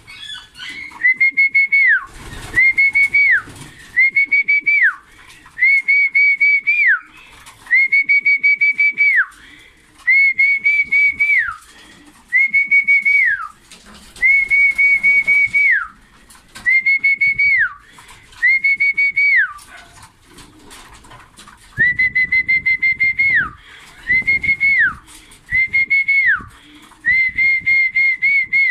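A pigeon keeper's whistled call to homing pigeons, repeated about fourteen times, once every couple of seconds: a fluttering, high whistle held steady and then sliding down in pitch as each call ends. It is the signal that calls the birds into the loft to feed.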